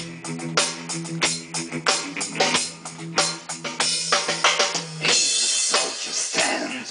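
Small rock band playing live: a drum kit's kick and snare strike over a held electric guitar chord, and cymbals wash out around the middle.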